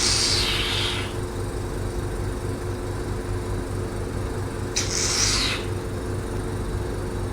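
Hydrafacial machine's vacuum pump running with a steady hum while the microdermabrasion handle draws water and suction. A short hiss of air fades about a second in, and another short hiss comes about five seconds in.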